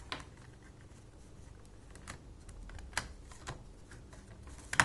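Scattered small plastic clicks and taps from a wireless mouse being handled as its battery is taken out, the loudest click near the end.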